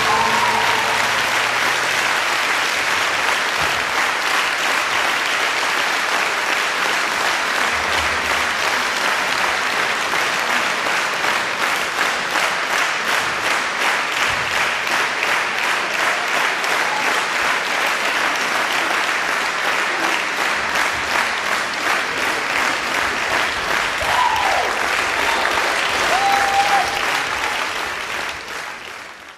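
Audience applauding steadily, with a couple of brief calls from the crowd near the end before it fades out.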